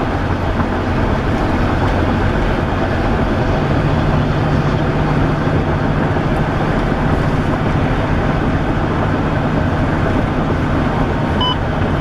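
Steady road and wind noise from a moving car, with a low, even hum that comes in about three and a half seconds in.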